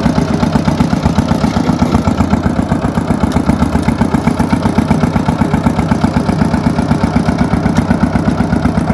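Old micro tractor's single-cylinder diesel engine running steadily close by, with a rapid, even beat.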